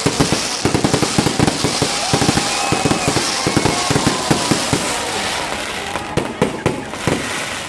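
Fireworks going off in a dense, rapid crackle of many small bangs over a steady hiss, thinning a little near the end.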